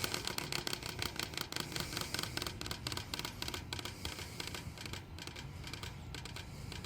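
Circa 1980-81 Galaxy 3714 box fan's blade coasting down after being switched off, with a rapid ticking that slows and fades as it winds down: the power cord is rubbing against the blade.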